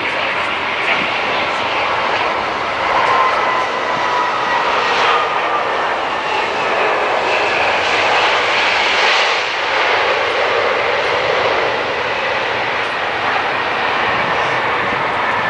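Airbus A320-232 airliner with IAE V2500 turbofans landing: a steady jet rush with a faint engine whine in the first half.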